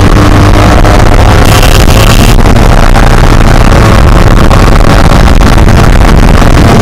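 Yamaha RX100's single-cylinder two-stroke engine running steadily under way at cruising speed.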